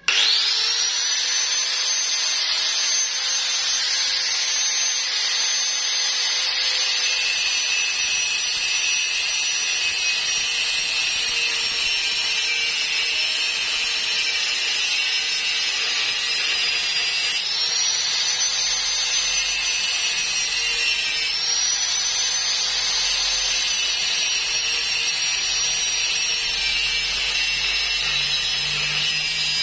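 Electric angle grinder spinning up, then cutting through a metal pipe with a steady high whine and grinding hiss. The whine dips in pitch twice past the middle as the disc bites harder, then recovers.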